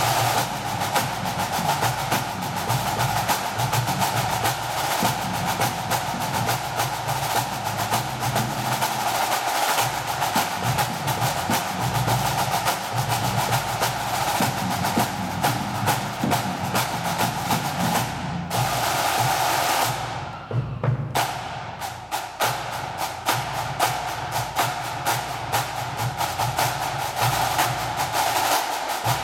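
Drum corps playing a drum fanfare: rapid snare drum strokes and rolls over tenor and bass drums, with a short thinning of the snares about twenty seconds in.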